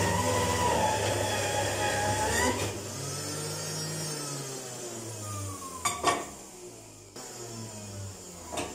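Electric centrifugal juicer juicing orange pieces as they are pushed down the chute, its motor running loudly. About two and a half seconds in it drops in level and its hum slides down in pitch. A short knock comes about six seconds in.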